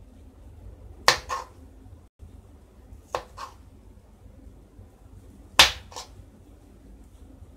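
Kitchen knife cutting through a soft steamed urad dal cake and knocking on a wooden chopping board: three cuts, each a quick pair of sharp knocks, the last one the loudest.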